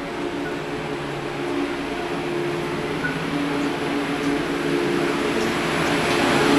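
A steady mechanical hum with several low droning tones, growing gradually louder.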